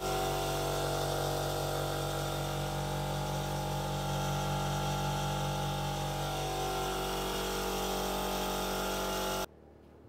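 A machine motor running steadily, a hum with several steady tones over a hiss, which cuts off suddenly near the end.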